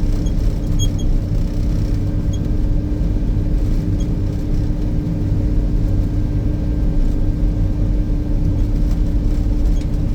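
Snowcat grooming machine's diesel engine running steadily while pulling a grooming drag, heard from inside the cab: a constant low rumble with a steady hum, and a few faint ticks.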